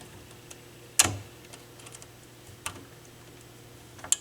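Pliers clicking against a stubborn sheet-metal tab inside a stereo receiver: three sharp metal clicks, the loudest about a second in, another near three seconds and a third near the end, with faint small ticks between.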